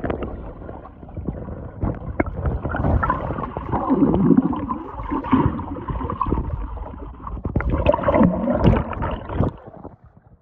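Muffled gurgling and sloshing of pool water heard through a microphone held underwater, with bubbling and knocks against the housing. It cuts off suddenly near the end as the microphone comes back out of the water.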